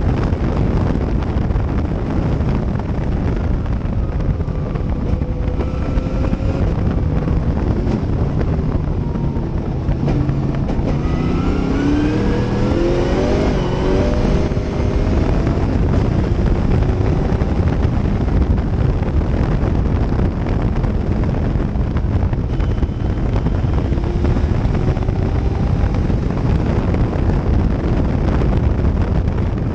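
Cobra-style race car's engine running hard at speed, heard from the open cockpit with wind noise on the microphone. Near the middle the engine note rises in pitch several times in a row as the car accelerates.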